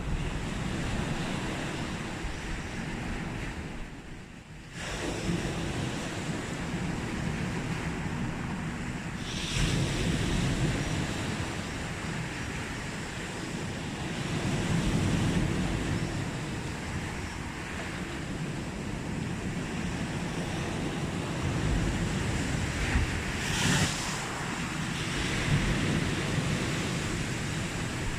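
Sea waves breaking and washing up a beach in a continuous rush. Louder surges come about ten, fifteen and twenty-four seconds in, and the sound briefly drops away about four seconds in.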